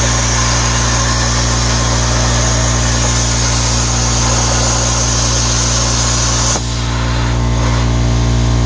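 CNC plasma cutter torch cutting through metal plate: a loud steady hiss over a constant electrical hum from the machine. The high part of the hiss cuts off about six and a half seconds in while the hum and a lower hiss continue.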